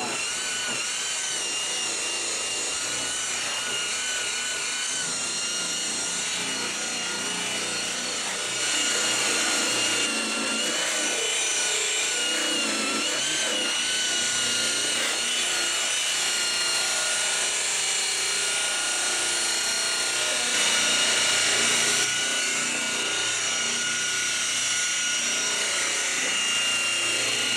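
Corded electric rotary polisher with a wool buffing pad running against a car's painted body panel, a steady motor whine that wavers slightly in pitch as the pad is worked over the paint. It gets a little louder about a third of the way through.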